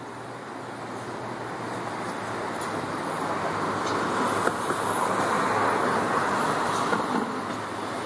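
Double-deck electric suburban train pulling slowly out of the yard toward the listener, its running noise growing steadily louder, with a few light clicks midway.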